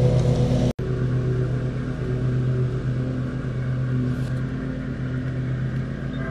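G scale model diesel locomotive running with a steady low hum and a fast, even pulsing. The sound cuts out for an instant just under a second in.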